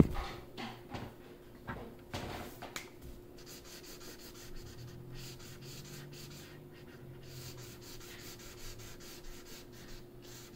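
Marker tip scribbling on paper in quick, irregular strokes as an area is filled in with colour.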